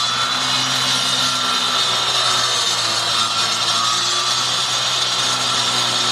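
Handheld disc power cutter running at full speed, its blade cutting steadily into a wall panel, with water fed to the blade from a pressure sprayer. A steady, high whine over a constant hum.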